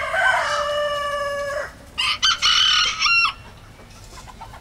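Rooster crowing: one long, loud call, then a second, shorter, choppier call about two seconds in.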